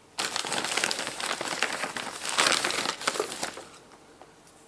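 Brown paper ration bag crinkling and rustling as a hand rummages inside it and pulls out a tin can. The crackle starts just after the beginning and dies away after about three and a half seconds.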